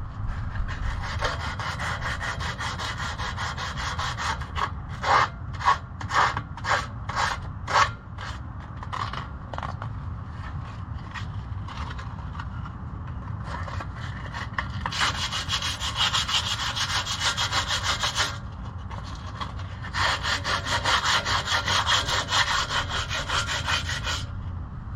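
Hand tool scraped back and forth over a steel exhaust pipe to clean dirt from around a freshly drilled sensor hole. A run of separate strokes about a second apart comes first, then two long spells of fast, even scraping.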